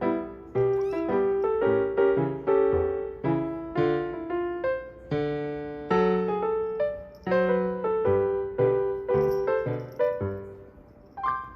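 Background piano music: a gentle melody of single struck notes and chords, each ringing and fading, at a moderate pace.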